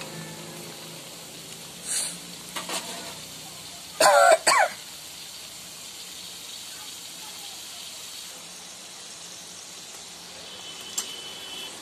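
Samosas deep-frying in hot oil in a kadai, a steady sizzle. About four seconds in, two short loud vocal sounds like a cough cut through it, and there are a few brief clicks around two seconds in.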